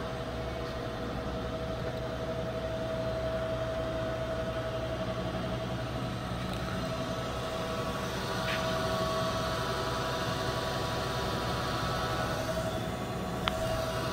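A steady mechanical hum with one constant mid-pitched tone under it, and two faint clicks later on.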